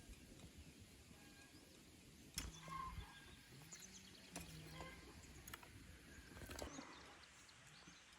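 Faint outdoor ambience with small birds chirping intermittently in the distance, and a few sharp clicks or knocks scattered through it.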